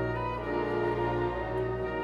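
Slow background music in an orchestral style, with held notes that change every half second or so.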